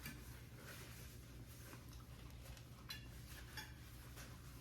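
Quiet eating: a few faint, scattered clicks and taps of cutlery on plates over a low room hum.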